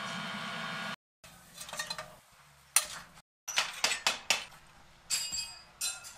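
Long metal rods clinking, knocking and scraping against a crucible of molten aluminum as workers handle the melt: a string of sharp metallic knocks, some ringing briefly. For the first second, a steady rushing noise from the wood-fired melting furnace, which cuts off abruptly.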